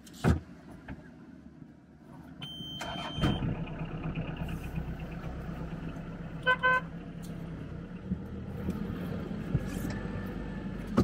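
Sherp amphibious ATV engine running steadily at a low idle, starting up about three seconds in after a sharp knock near the start. A brief two-pulse horn-like toot sounds about six and a half seconds in.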